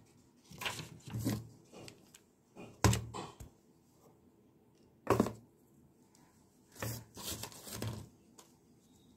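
Crafting handling sounds: about half a dozen short knocks and thuds, spaced irregularly, as small objects such as a foam block and paint pots are set down and moved about.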